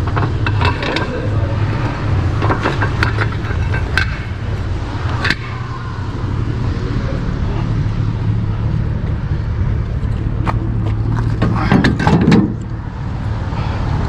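Scrap metal being handled and loaded, with irregular clanks and knocks: a few in the first seconds, one ringing briefly at about five seconds, and a louder cluster near the end. A steady low engine hum runs underneath.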